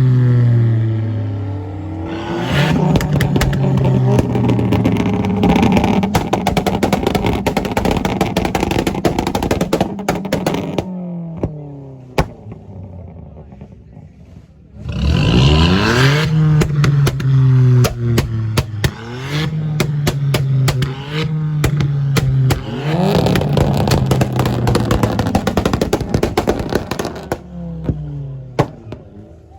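Car engines revving hard, the revs held high and then dropping off, with a quieter lull about halfway through before a sharp rev rise; many short sharp cracks sound over the engines throughout.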